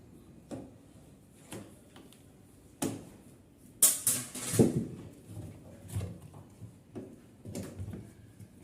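Hands and tools working on a front-loading washing machine's rubber door seal: scattered clicks and knocks, with a louder scrape and clatter about four seconds in.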